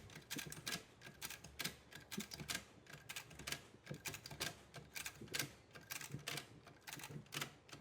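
Ratchet strap ratchets being worked: an uneven run of faint clicks, a few a second. The straps are being tightened to lift a loaded dolly off the floor.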